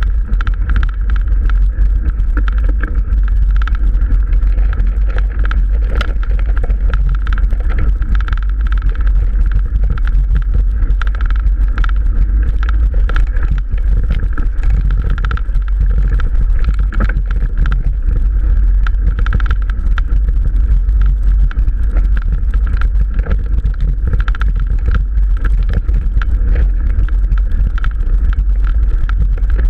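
Mountain bike ridden over a rough dirt track, heard through a camera mounted on the bike or rider: a loud, steady low rumble with constant rattling and clicking from the bumps.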